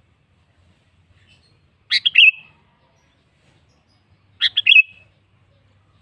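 Sooty-headed bulbul calling: two short phrases of a few quick notes each, about two and a half seconds apart.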